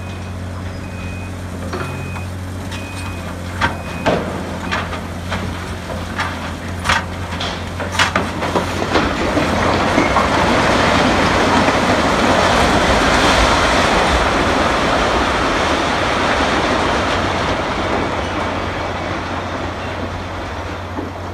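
A demolition excavator's diesel engine runs steadily, with four short alarm beeps near the start. Then come sharp metal bangs and creaks as the steel frame of the boiler building is torn at, followed by a long crashing rumble of the structure collapsing, swelling for several seconds and slowly easing off.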